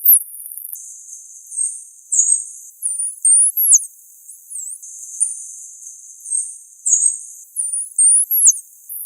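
Dolphin whistles: a quick series of high-pitched calls, each sweeping up or down in pitch, over a faint hiss.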